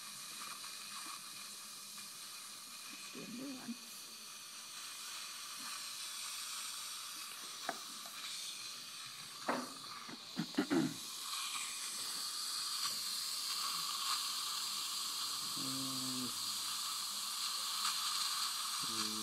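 Dental suction running with a steady hiss, a little louder from about twelve seconds in, with a few knocks and handling bumps around ten seconds in.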